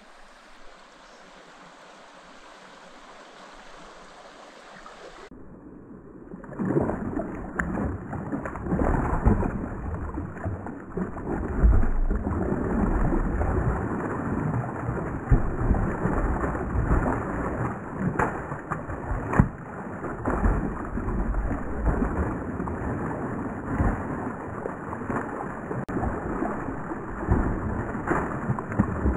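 Creek water running softly. Then, from about six seconds in, a hooked 6 lb wild brown trout thrashes and splashes at the surface: loud, irregular splashing with sharp slaps and a heavy low rumble.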